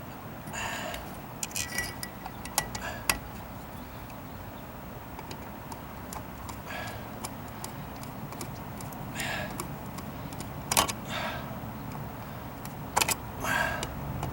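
Scattered metallic clicks, clinks and short scrapes from a screwdriver and metal electrical box hardware being handled while a GFCI outlet is screwed into its box.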